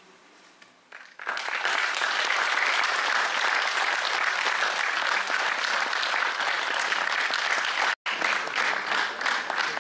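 Audience applauding: after a second of hush, clapping breaks out and goes on steadily, cut off for an instant near the end before carrying on.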